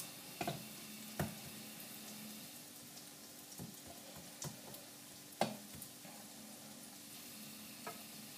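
Potato-and-egg Spanish omelette mixture sizzling in an oiled frying pan while a spatula spreads it, scraping and tapping against the pan about six times, the sharpest tap about five and a half seconds in.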